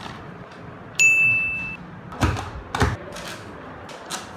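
A single bright ding that rings and fades over under a second, followed about a second later by two dull thumps about half a second apart, with faint paper and desk clatter around them.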